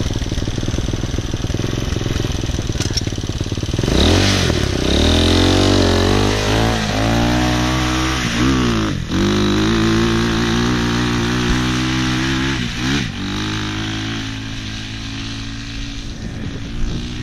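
200 cc dirt bike engine running steadily, then opened up about four seconds in and ridden. Its pitch climbs and drops back several times as the revs rise and fall, and it eases off toward the end.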